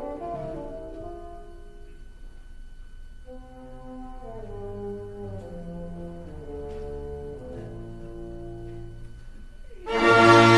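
Orchestral music with brass: soft held notes and slowly stepping lines, then the full orchestra comes in loudly near the end.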